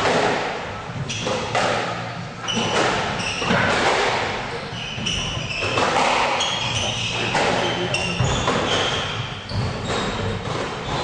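Squash rally: the ball hits rackets and the walls about once a second, echoing in the court, with shoes squeaking on the wooden court floor between shots.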